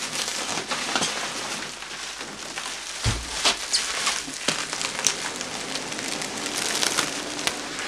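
Packing peanuts rustling and crackling as hands dig through a box full of them: a dense, continuous patter of small clicks, with one dull thump about three seconds in.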